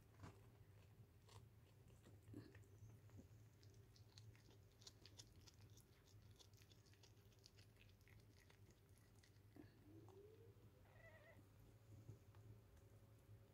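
Mother cat faintly chewing and licking at birth remains beside her newborn kittens, a run of small wet clicks. A short rising squeak comes about ten seconds in.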